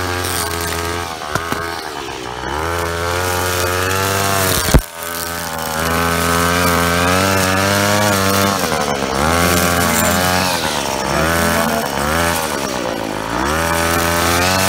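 A 25cc gas string trimmer running and cutting grass, working again after its repair. Its engine revs up and eases off several times, and there is one sharp knock about five seconds in.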